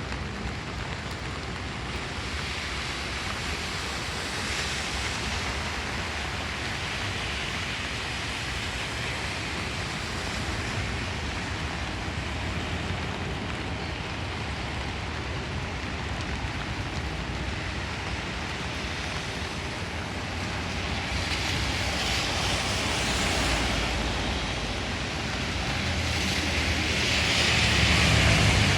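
Heavy rain falling in a steady hiss, with a low rumble swelling up twice in the second half.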